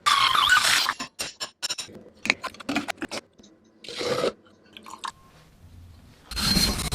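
Hand work on an old adze: a loud scrape at the start, then scattered sharp clicks and short scrapes, and another long, loud scrape near the end.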